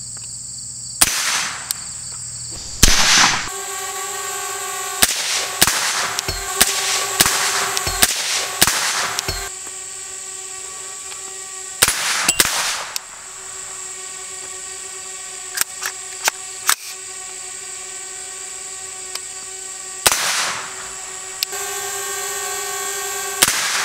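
Suppressed gunshots from a 10.5-inch AR-15 pistol fitted with a Griffin Armament Recce 7 suppressor, firing Wolf steel-case .223 ammunition. Two single shots come first, then a quick string of about nine shots roughly half a second apart, then a few more spaced shots.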